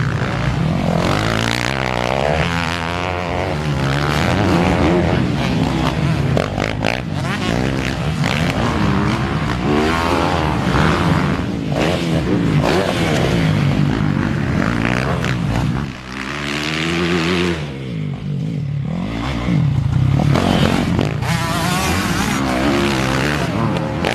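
Four-stroke Yamaha motocross bike engine revved hard through corners on a dirt track, the pitch climbing on the throttle and dropping off again many times over several passes, with two short lulls in the second half.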